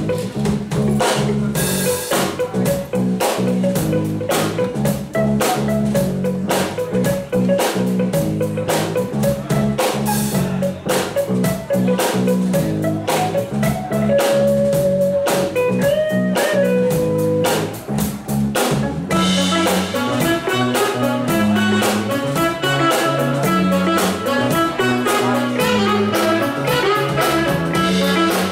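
Live funk band playing: a drum kit keeping a steady beat under an electric bass line and a semi-hollow electric guitar. The sound fills out about two-thirds of the way through.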